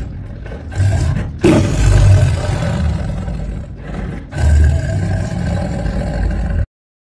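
Tiger roaring in several rough, deep surges, the loudest about one and a half seconds in; the sound cuts off suddenly near the end.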